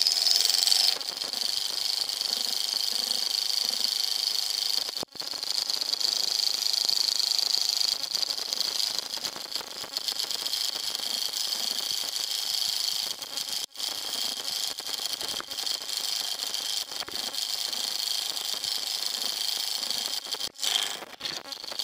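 Small alcohol-fired Stirling engine running at speed, its flywheel and linkage giving a steady, high-pitched whirring rattle. This is the fastest of the collection's engines.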